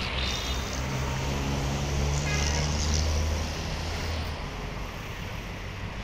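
Road traffic with a bus and cars driving past close by. A deep engine drone swells over the first three seconds and fades out about four seconds in, over a steady hiss of traffic.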